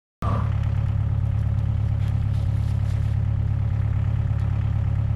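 Excavator's diesel engine running steadily at idle, a low even hum with a fast pulse, starting abruptly a moment in.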